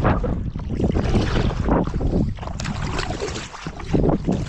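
Wind buffeting the microphone with irregular water splashes from kayak paddle strokes.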